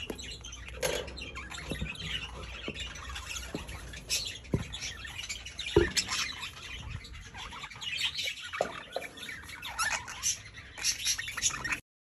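Budgerigars chirping and squawking in a steady chatter of short high calls, with a few sharp knocks, the loudest about six seconds in.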